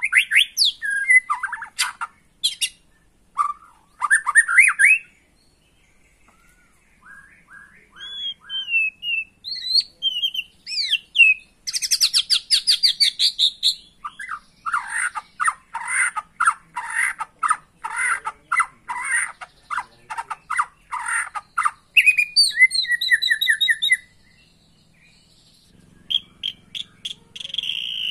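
White-rumped shama singing a varied song. It runs through whistled phrases and gliding notes, then a fast falling trill, then a long run of rapid repeated chattering notes at about four a second. There are short pauses about five seconds in and near the end.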